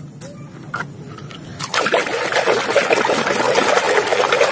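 Water splashing and sloshing as a muddy toy car is scrubbed by hand in a tub of water, starting about one and a half seconds in after a couple of light knocks.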